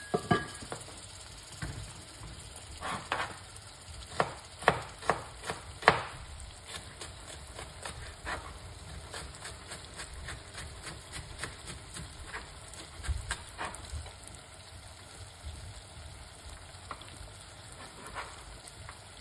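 Sliced carrots, onion and tomato frying with seasoning in an aluminium pot, sizzling. A run of sharp clicks comes in the first six seconds, then a softer, steady sizzle.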